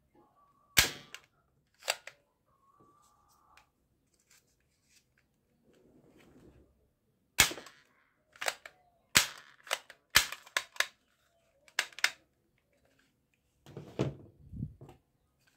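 Plastic toy pump-action foam dart shotgun being worked and fired: about ten sharp plastic clacks and snaps at irregular intervals, with a cluster of duller knocks near the end.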